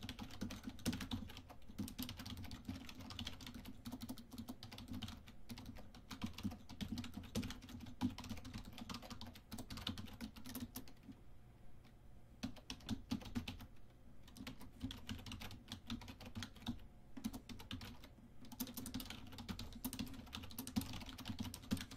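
Typing on a computer keyboard: runs of quick key clicks, with short pauses about halfway through.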